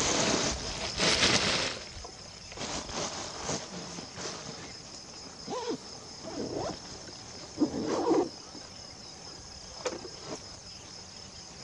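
Steady high-pitched chorus of insects such as crickets. A louder burst of noise comes in the first two seconds, and a few short faint calls follow later on.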